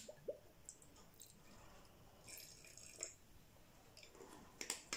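Whisky poured from a small glass bottle into a tasting glass: faint liquid drips and a couple of short glugs near the start. These are followed by scattered light clicks of the bottle and its screw cap being handled and twisted shut, most of them near the end.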